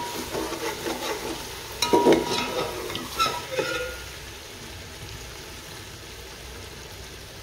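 Beef pieces frying with spices in a metal pot, stirred with a slotted spoon. For the first four seconds or so the spoon scrapes and knocks against the pot with a few short squeaks, then only a steady sizzle is left.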